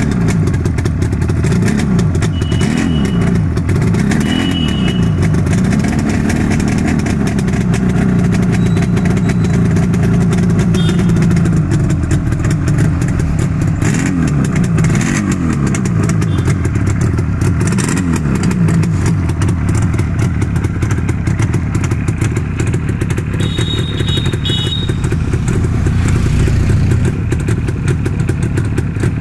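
Yamaha RD350's air-cooled two-stroke parallel-twin engine running at a standstill. It is blipped up and down several times and held briefly at a higher speed through the first two-thirds, then settles to a steady idle.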